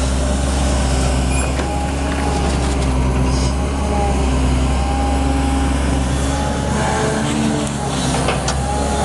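Caterpillar 320D L long-reach excavator working: its diesel engine runs steadily under load with a constant low hum, while short whining tones from the hydraulics come and go as the boom moves.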